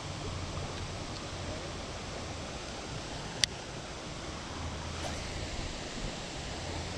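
Steady rushing noise of shallow creek water with wind rumble on the microphone, and one sharp click about three and a half seconds in.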